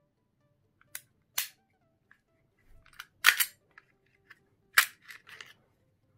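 A handful of sharp plastic-and-metal clicks from an airsoft Glock 42 gas blowback pistol being worked by hand as its slide is taken off the frame. The loudest clacks come about three and about five seconds in.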